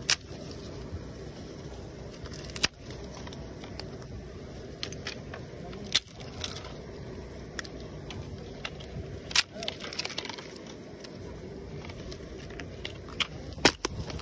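Small wood campfire of twigs and dry leaves crackling, with a handful of sharp snaps a few seconds apart, the loudest near the end.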